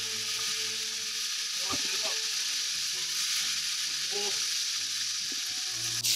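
Battered fruit deep-frying in a pot of hot oil: a steady sizzle.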